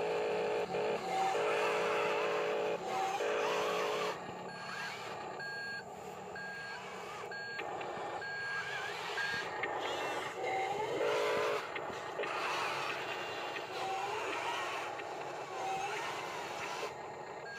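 Radio-controlled toy construction vehicles' built-in sound effects: a buzzing simulated engine sound comes in short stuttering bursts in the first few seconds and again about eleven seconds in. Between them a back-up beeper beeps about every three quarters of a second for some five seconds. Under it all runs the whine of small electric drive motors.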